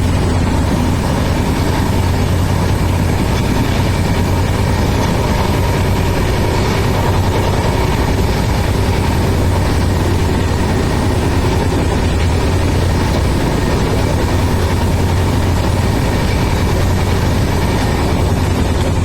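Passenger train running steadily, heard from on board: a continuous low rumbling hum with a constant level and no breaks.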